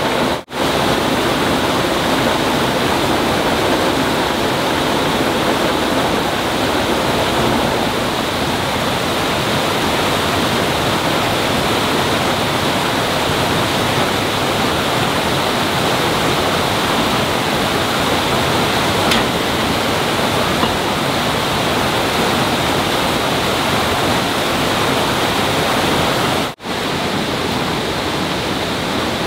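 Steady rush of flowing water, an even noise with no rhythm, that drops out very briefly twice.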